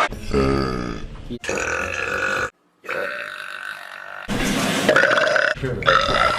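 Women belching loudly, a string of separate burps from spliced clips, each about a second long, with abrupt cuts between them. The first burp is deep and drawn out.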